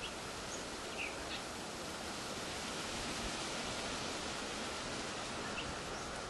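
Chorus of 17-year periodical cicadas: a steady, unbroken buzzing drone, with a few faint bird chirps.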